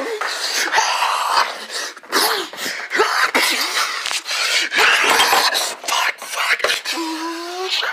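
Loud rustling, scraping and knocking of a phone's microphone rubbing against skin and clothing as the phone is jostled, with short breathy grunts mixed in. A brief steady tone sounds near the end.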